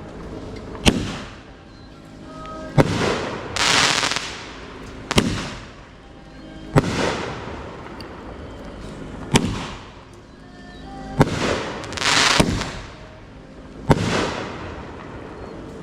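A multi-shot consumer firework firing seven sharp bangs, about two seconds apart, each followed by a hissing, crackling tail.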